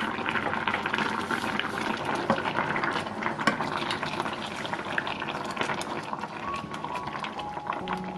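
Spicy red braising liquid of a flounder and radish braise bubbling hard in a stainless steel pot, with a wooden spatula stirring through it and lifting the fish.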